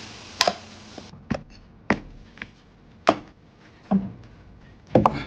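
Dishes and tableware knocking and clinking as food is served out: about seven separate sharp taps roughly a second apart. A hiss from the cooking stops about a second in.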